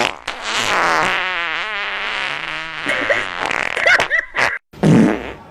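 Farting sounds: a long fart whose pitch wobbles up and down, then after a brief break a short, loud, low fart near the end.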